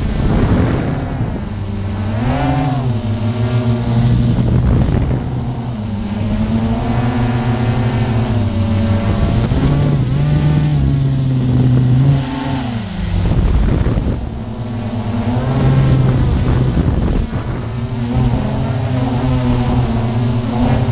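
Multirotor drone's electric motors and propellers running, a buzzing hum whose pitch rises and falls over and over as the drone speeds up and slows its motors.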